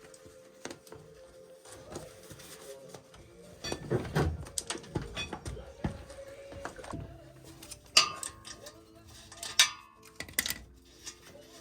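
Metal tools and motorcycle parts clinking and knocking during a teardown, with two sharp ringing metal clanks, one about eight seconds in and another a second and a half later.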